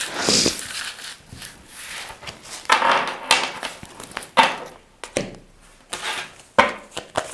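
Tarot cards being handled on a table: irregular papery rustles and soft taps as the cards are shuffled, drawn and laid down.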